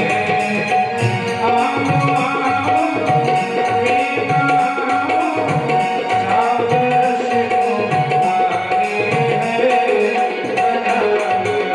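Bhajan music with a steady tabla rhythm under long held melody notes.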